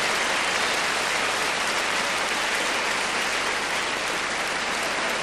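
Audience applauding steadily, a dense wash of clapping that eases off slightly.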